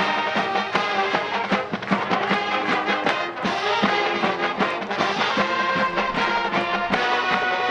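Marching band playing: brass section holding and moving through notes over a steady beat of drums.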